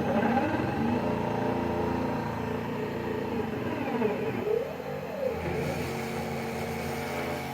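CNC router's stepper motors whining as they drive the axes: a stack of steady tones whose pitch dips and rises again briefly about four seconds in.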